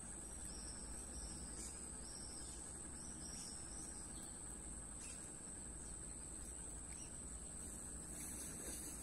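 Insects trilling: a steady, high-pitched chorus, over a faint low rumble.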